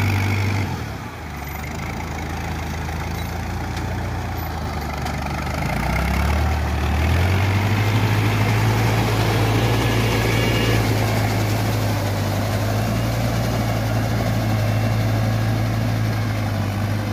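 Shibaura SD3000 tractor's swapped-in combine-harvester diesel engine running hard as it tills a flooded rice paddy on cage wheels, with water churning. Its steady drone dips lower about a second in, climbs back a few seconds later and holds steady.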